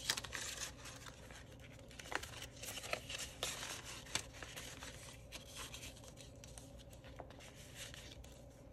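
Paper bills and the plastic envelopes of a cash binder rustling and crinkling in the hands as the binder pages are turned, with small scattered crackles and clicks.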